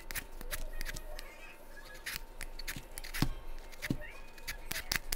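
Y-shaped vegetable peeler scraping the skin off a raw potato in a quick, irregular series of short strokes.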